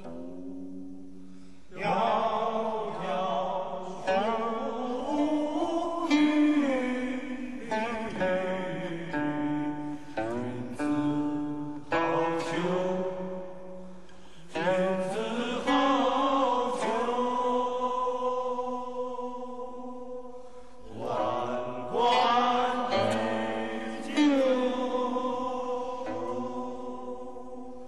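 Slow solo music on a plucked string instrument. Each note is struck sharply and rings on, often sliding in pitch as it fades, in phrases separated by short pauses.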